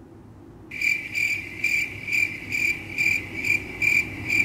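Cricket chirping, most likely a comic 'crickets' sound effect for an awkward silence: one steady high chirp pulsing about two to three times a second. It starts suddenly about a second in and cuts off abruptly.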